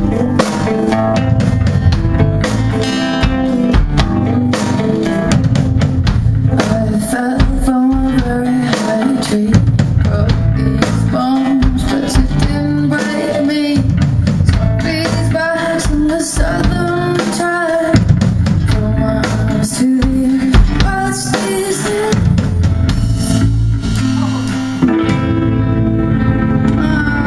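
Indie rock band playing live: strummed acoustic guitar over a drum kit keeping a steady beat.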